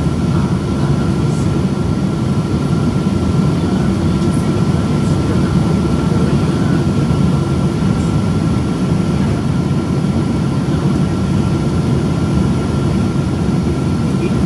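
Steady cabin noise of a Boeing 777-200 in flight, heard from a window seat over the wing: a deep engine and airflow rumble with hiss, and a thin steady whine above it. The engines are GE90 turbofans.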